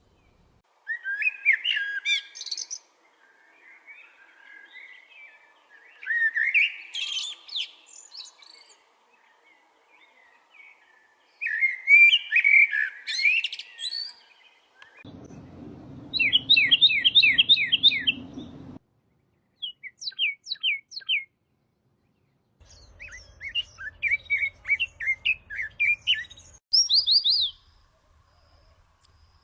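A small songbird singing: three warbling song phrases of a couple of seconds each, then fast trills of repeated, sharply falling whistled notes near the end. A low rumbling noise comes and goes abruptly under the later trills.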